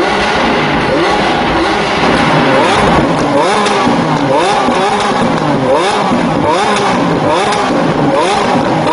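Lamborghini Aventador's V12 engine revved hard over and over at standstill, its pitch rising and falling about once a second, with sharp pops as the exhaust backfires and spits flames.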